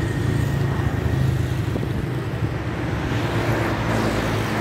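An engine running steadily at idle, a low, even rumble.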